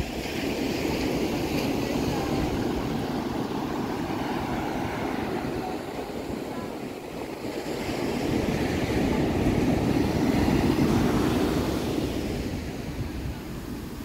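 Ocean surf breaking and washing up a sandy beach, the noise swelling early on and again more loudly midway before easing, with wind rumbling on the microphone.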